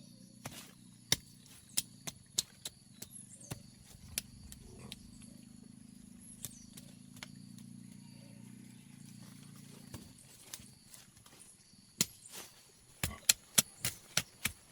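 Irregular sharp knocks, like blade or hand strikes on wood, breaking into a quick run of about four strikes a second near the end. A low steady hum runs underneath and stops about ten seconds in.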